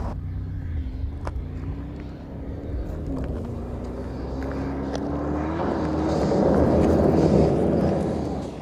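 Mercedes-AMG G63's twin-turbo V8 running as the SUV drives, a steady engine note that swells louder over the last few seconds before fading out.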